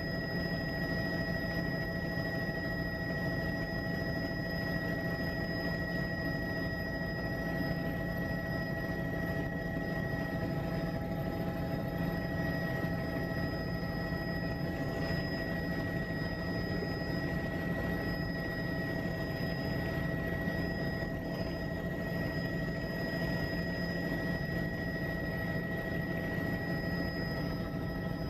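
Helicopter in steady flight, heard from inside the cabin: an even engine and rotor drone with a constant high whine over it.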